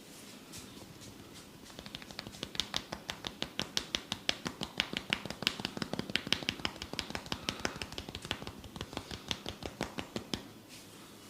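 Rapid, even tapping strokes of a head massage, about six or seven taps a second, starting about two seconds in and stopping shortly before the end.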